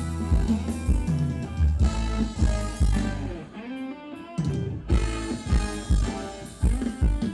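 A live band playing Thai ramwong dance music with a steady drum beat, bass and guitar. About three and a half seconds in, the drums and bass drop out for roughly a second, then the beat comes back in.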